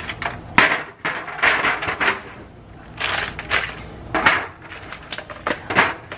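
Plastic Oreo cookie packet crinkling and rustling in bursts as it is handled, with a few light taps as cookies are set down in an aluminium foil pan.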